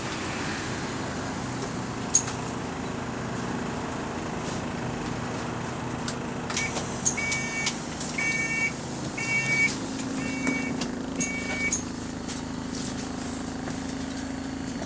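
Single-decker bus engine idling steadily at a high idle speed, heard from inside the saloon. From about six and a half seconds in, the door warning beeper sounds five times, about once a second, as the doors prepare to close.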